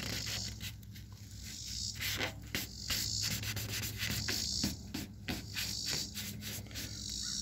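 Crumpled paper towel rubbing over a freshly spray-painted truck door, wiping off petroleum jelly: stroke after stroke of soft hiss, with crinkling clicks from the paper.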